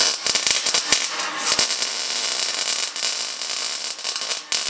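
Wire-feed (MIG) welder running a bead that joins sheet steel to an angle-iron frame, with a steady fast crackling. The crackling stops just before the end.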